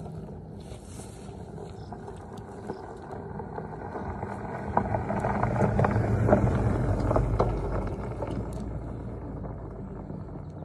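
A pickup truck driving past on a gravel road, its engine and tyres on the gravel swelling to a peak about six seconds in, then fading as it moves off.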